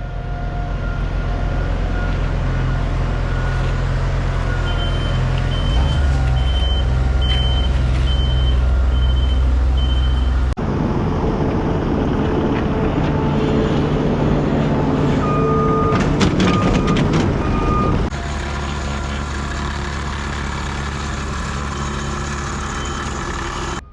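Heavy diesel paving equipment and trucks running with a steady low engine hum. A backup alarm beeps evenly for several seconds, and later a second, lower-pitched backup alarm beeps a few times.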